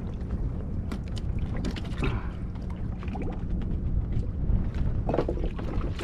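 Steady wind and water noise around a small fishing boat, with a faint steady low hum and scattered light knocks and clicks of gear being handled on board.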